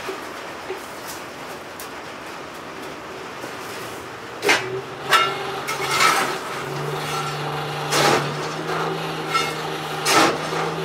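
Blacksmith's tongs clanking against steel in a coal forge while a railroad spike reheats: a few seconds of quiet, then several sharp metallic clanks with a short ring. A steady low hum comes in about halfway through and rises a little in pitch.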